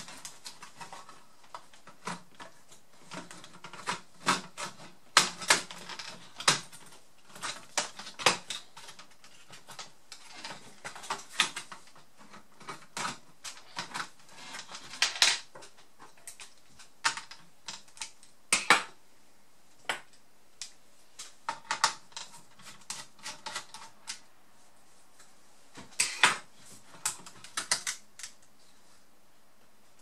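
Irregular clicks, taps and plastic clatter from a Toshiba Satellite Pro A300 laptop being taken apart by hand: a small screwdriver and a plastic pry tool work on the plastic case, and parts are set down. A few louder snaps stand out, about five seconds in, near the middle and several seconds from the end.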